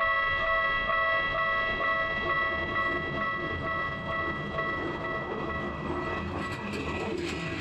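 Railway level-crossing bell ringing in a steady repeating ding, fading about six seconds in as the rumble and rush of a passing train rises.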